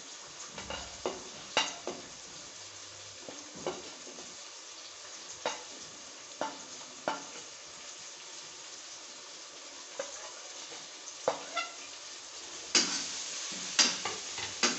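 Onion and tomato masala sizzling in a frying pan while spices are scraped in off a plate with a metal ladle, with scattered clicks of the ladle. Near the end it is stirred and the sizzle gets louder.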